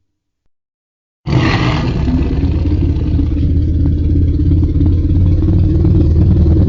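Monster roar sound effect: after about a second of silence it starts abruptly as a loud, low, rough rumble, brightest at its onset, then holds steady.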